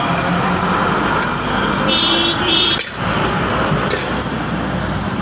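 Steady street traffic noise from passing vehicles, with a few sharp metallic clicks as a steel tin is handled and its lid closed.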